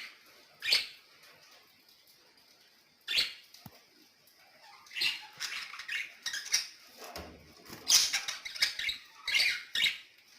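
Pet birds chattering in short, scattered bursts, a couple early on and a busier run in the second half.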